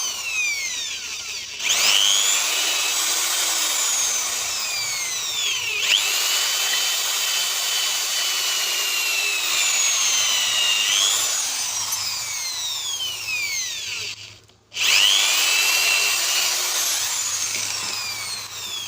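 Electric drill boring out a hole in a golf ball with a large bit: the motor's whine sags and recovers as the bit bites and frees, running almost continuously, with a short stop about three-quarters of the way through before it starts again.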